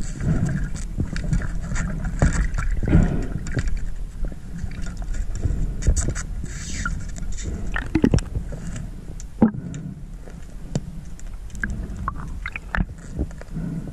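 Underwater sound picked up by a camera below the surface: a steady low rumble of moving water, with scattered clicks and knocks.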